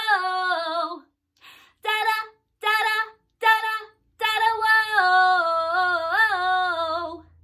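A woman singing unaccompanied: a long held "whoa" ends about a second in, then short "da-da" syllables, then another long held "whoa" whose pitch bends up and back near the end.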